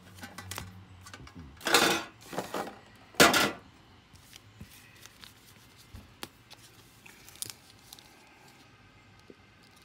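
Trading cards and foil booster packs being handled on a table: two louder rustling swishes in the first few seconds, then scattered light clicks and taps.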